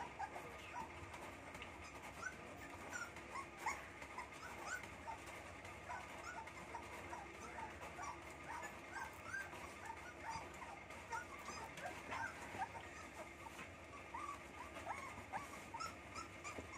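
A litter of young Rottweiler puppies whimpering: short, high, rising squeaks, a few a second, overlapping.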